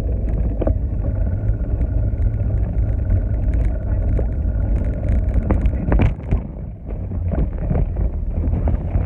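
Wind buffeting a phone's microphone on a moving bicycle: a loud, steady low rumble that drowns out a voice talking. The rumble dips briefly about two-thirds of the way through.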